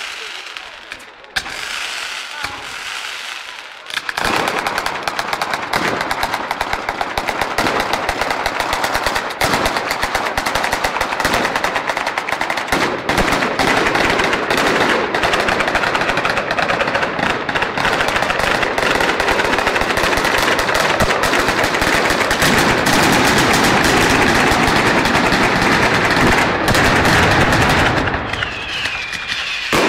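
A long string of firecrackers going off in rapid, continuous cracks. A few separate bangs come first, the dense run starts about four seconds in, and it thins briefly near the end.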